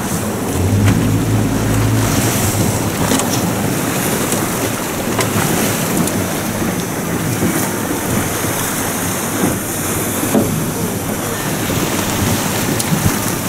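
Steady rush of wind and sea water aboard a small boat at sea, with wind buffeting the microphone.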